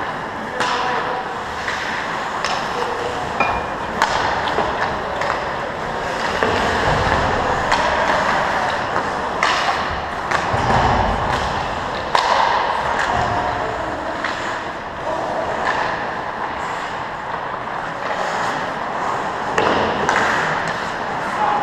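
Ice hockey rink sounds: skate blades scraping and hissing on the ice, with many sharp clacks of sticks and puck echoing in the arena. A few low thuds stand out about seven and eleven seconds in.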